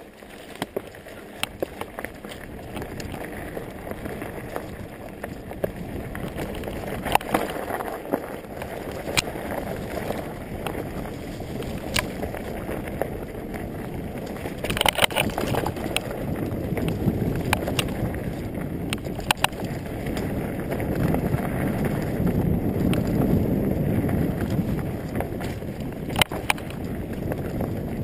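Mountain bike riding down a dirt singletrack: wind rushing over the camera microphone and tyres rolling, with sharp clicks and rattles from the bike over bumps. The rush builds as speed picks up, and a cluster of knocks comes about halfway through.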